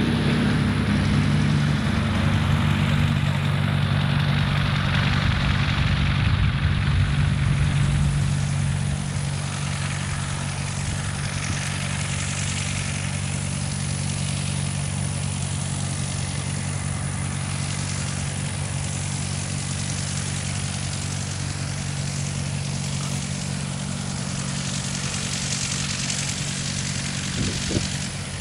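A vehicle engine running steadily at a constant pitch, louder for the first eight seconds and then quieter.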